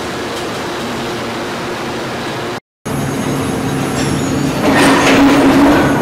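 Steady industrial machinery noise in an aluminium melting plant. It drops out for a moment about two and a half seconds in, then comes back as a machine hum with several steady tones that grows louder near the end.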